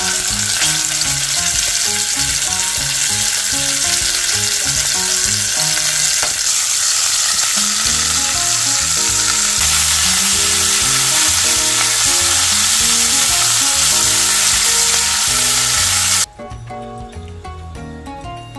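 Pork shoulder pieces sizzling loudly in hot cooking oil in a stainless steel pot, with the skin side down. The sizzle drops off suddenly near the end.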